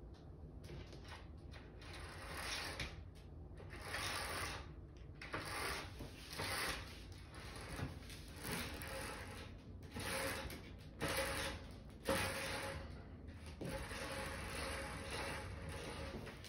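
Bead pull-chain of a roll-up roller-blind shower curtain being drawn through its roller clutch, in a series of pulls about a second apart, as the curtain is lowered.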